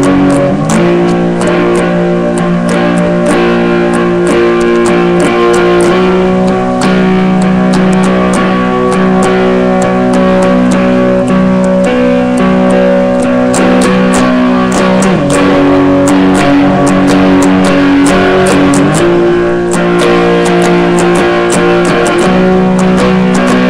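Electric guitar playing power chords, picked in quick repeated strokes. The held chord shifts to a new fret position every few seconds.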